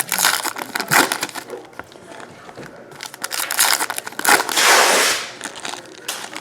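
Trading-card pack wrappers crinkling and being torn open, with many short crackles and clicks. A longer ripping noise comes a little past the middle.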